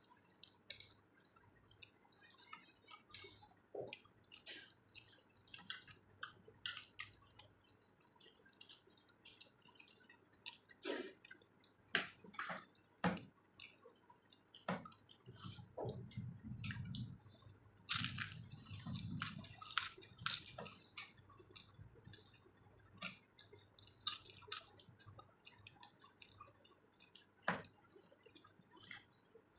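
Close-up wet eating sounds: chewing and lip smacks as rice with dal is eaten, made up of many short, sharp, moist clicks at an uneven pace. A low rumble runs under them for a few seconds in the middle.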